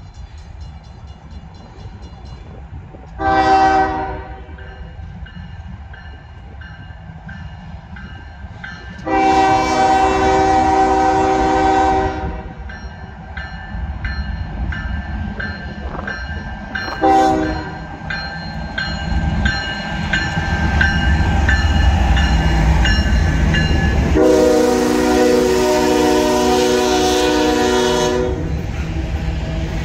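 Norfolk Southern diesel freight locomotive's horn, a chord of several notes, sounding four blasts: short, long, short, then the longest near the end. The locomotives' diesel engine rumble grows louder as they pass in the second half.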